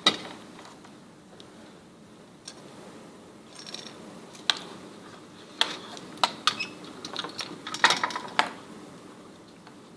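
Light clicks and clatter of soldering tools being handled on a workbench: one sharp click at the start, then a run of small clicks and knocks in the second half.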